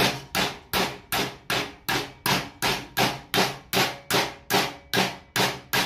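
Short-handled sledgehammer striking the edge of a galvanized sheet-steel disc clamped in a steel vise, in a steady rhythm of nearly three blows a second, each blow ringing briefly: the flange of an exhaust resonator end cap being hammered over.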